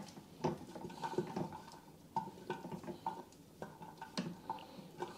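A string of faint, irregular taps and ticks as fresh yeast is crumbled by hand into the stainless-steel bowl of an Ankarsrum stand mixer, the metal bowl ringing briefly after some of them.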